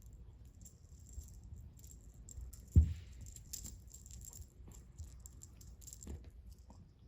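Light rattling and scattered small clicks, with one dull thump about three seconds in.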